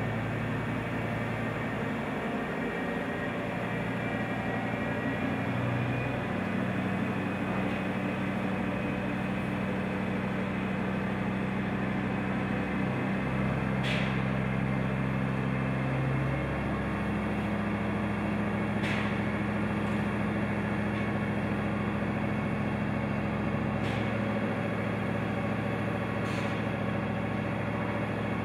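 Heavy mobile crane's diesel engine running steadily through a lift, its note stepping up and down a few times, with a few faint metallic clicks.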